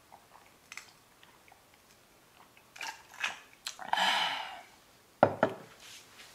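Someone eating crisp deep-fried flower-and-greens tempura: a few short crunchy bites about three to four seconds in, then two sharp knocks a little after five seconds.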